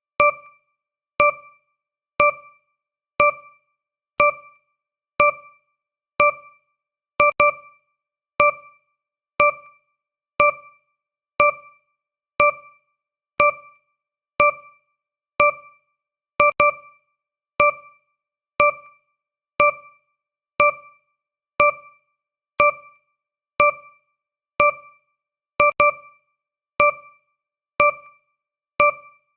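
Countdown timer's per-second tick sound effect: a short electronic note, like a struck keyboard key, that starts sharply and fades quickly, repeating once every second. A few of the notes come as a quick double strike.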